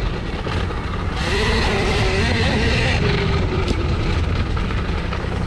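Husqvarna electric youth dirt bike riding a grassy trail: heavy wind rumble on the microphone and trail noise, with a steady high whine from the electric motor and a lower tone that wavers.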